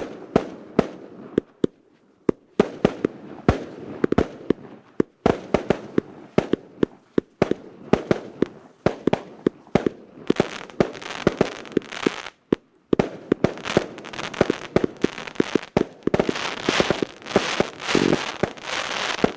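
Firework battery firing a rapid string of shots and bursts, with stretches of dense crackling about halfway through and again near the end.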